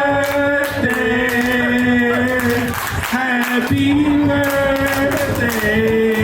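Singing voice holding long, drawn-out notes without clear words, the pitch stepping down from note to note. There is a short break about three seconds in, then another long phrase.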